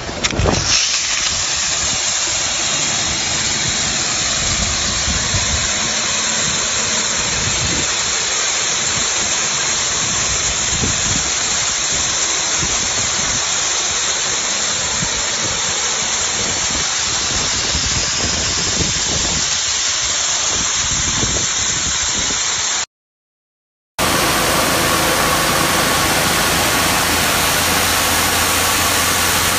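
Pressure washer running and spraying, a steady loud hiss of water. Near the end it cuts off for about a second, then comes back as a different recording where an engine's steady hum runs under the spray.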